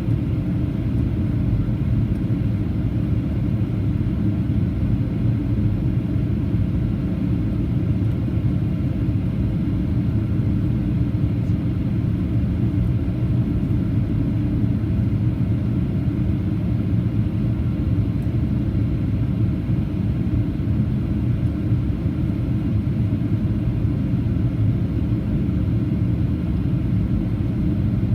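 Steady low rumble inside the cabin of a Boeing 737-800 in flight: its CFM56-7B turbofan engines and the rush of air over the fuselage, unchanging throughout.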